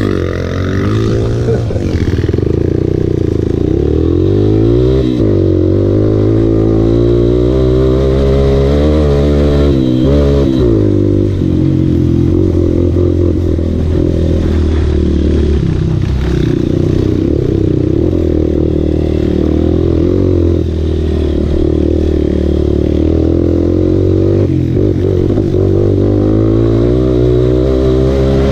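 Enduro motorcycle engine running under way, its revs rising and falling repeatedly with the throttle for about the first ten seconds, then holding steadier.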